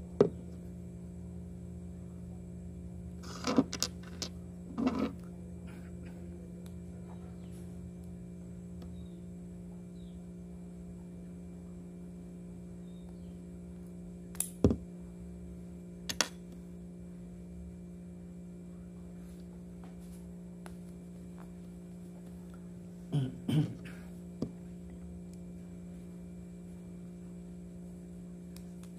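A handful of short, sharp clicks and taps from a screwdriver and small metal parts of a Daiwa fishing reel being handled during disassembly of its anti-reverse, over a steady low electrical hum.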